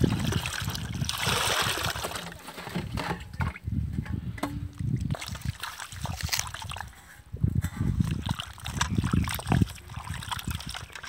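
Water poured from a jug into a steel bowl for about the first two seconds, then hands swishing and rubbing cut snake gourd pieces in the water, with irregular sloshing splashes and small knocks.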